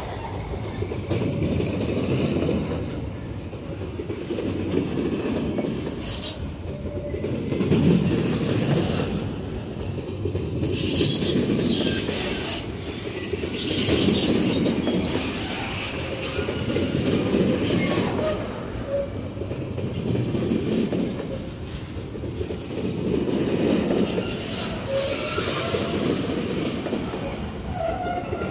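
Empty flat wagons of a freight train rolling past on steel rails: a low rumble and clatter of wheels that swells and fades about every three seconds, with a few short, high wheel squeals in the middle.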